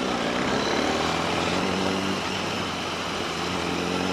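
Yamaha R1's inline-four engine running at fairly steady revs while riding, the pitch easing slightly a couple of times, with a steady rush of wind and road noise over it.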